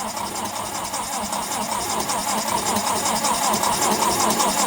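Engine of a 1965 Lincoln SA-200 welder cranking over on its starter, with a steady rhythmic churn, not catching: a cold start in freezing weather.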